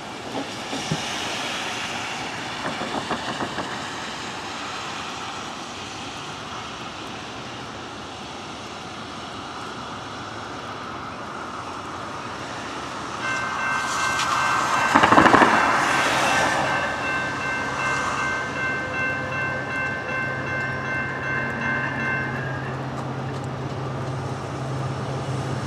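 Horn of an approaching Norfolk Southern EMD SD70ACE locomotive, a steady multi-note chord held for about nine seconds from roughly halfway through. Under it grows the low drone of the locomotive's two-stroke EMD 710 diesel, with a brief rush of noise near the horn's start.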